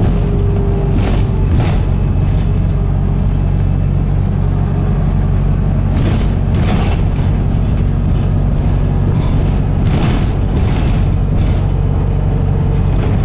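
Cabin sound of a New Bus for London (Wright New Routemaster) hybrid double-decker on the move: a steady low drone from the drivetrain and road, with a handful of short knocks and rattles from the interior fittings.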